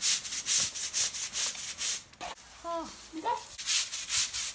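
Stiff-bristled deck brush scrubbing wet paving slabs in quick back-and-forth strokes, about four or five a second, with a short pause about halfway through.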